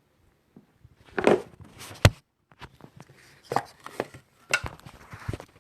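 Knocks and clicks of small objects being handled and set down on a hard surface, scattered and irregular, the loudest a sharp knock about two seconds in.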